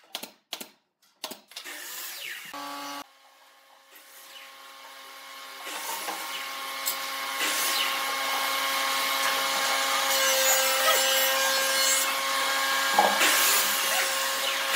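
A few sharp shots of a pneumatic brad nailer in the first second or so, then a steady motor hum with several fixed tones that builds up over a few seconds and keeps running.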